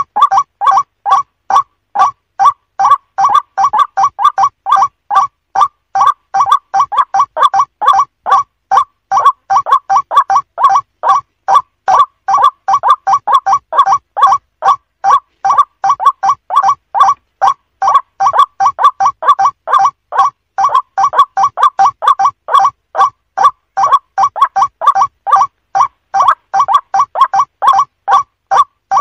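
White-breasted waterhen calling, a loud unbroken series of short harsh notes repeated about three times a second.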